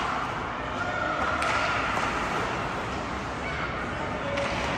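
Ice hockey rink game sound: a steady, echoing wash of arena noise with faint distant voices and two sharp knocks, one about a second and a half in and one near the end.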